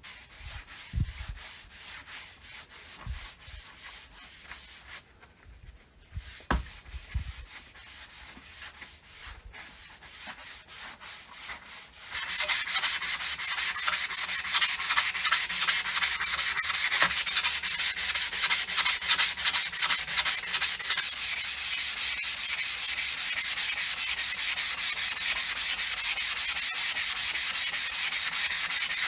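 Sanding of a part from a rusty car air pump: quiet handling with a few soft knocks, then, about twelve seconds in, loud, steady, rapid back-and-forth rubbing that keeps on without pause.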